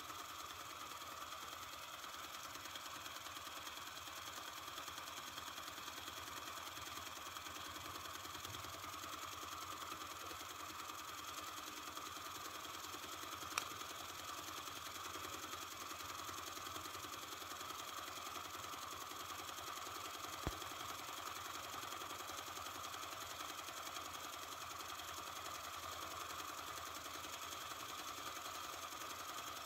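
Sterno-fired toy vertical oscillating steam engine running steadily with a fast, even ticking. There are two single sharp clicks, one about halfway through and one about two-thirds in.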